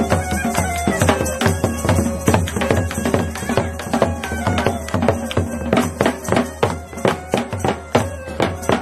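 Himachali Pahadi folk dance music: a fast, steady drum beat with a sustained melody line over it.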